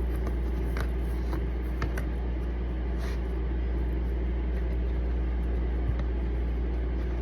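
Steady low hum, with a few faint light clicks over it.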